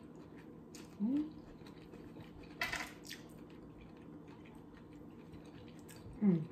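Quiet eating at a table over Hot Cheeto-crusted fried chicken: a short hum about a second in, a brief scratchy noise near the middle, and another short vocal sound near the end.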